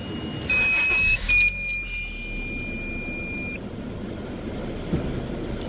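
Electronic beeper sounding a steady high-pitched tone. A short tone comes in the first second, then a louder one holds for about two seconds before cutting off, over a hum and handling noise.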